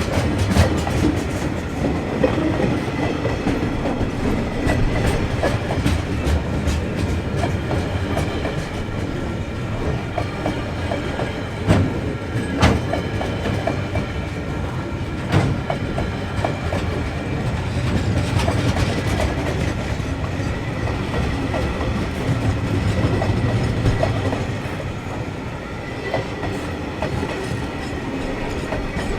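Freight train wagons rolling past at speed: a steady rumble of wheels on rail, broken by repeated clicks and knocks as the wheels cross rail joints.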